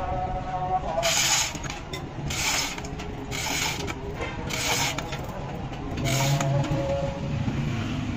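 Manual chain hoist being worked to hold a truck axle housing in a press, its chain rattling in short bursts about once a second.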